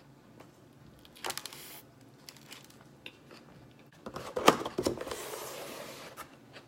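Close-up eating and food-handling noises while eating a spring roll: two bouts of crackly, rustling clicks, the louder one about four seconds in, trailing off in a soft hiss.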